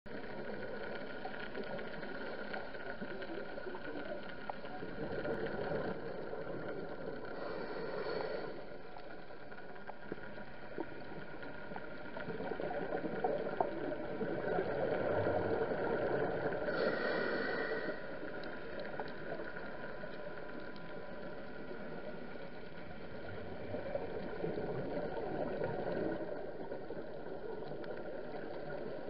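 Underwater sound on a scuba dive: a steady low hum and rushing noise, broken twice by short bursts of a diver's exhaled regulator bubbles, about eight seconds in and again about seventeen seconds in.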